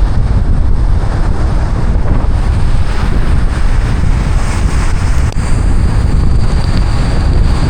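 Car driving through a heavy downpour: rain and tyre spray on the wet road make a dense, steady rumbling noise. A faint, high steady whine joins about five seconds in.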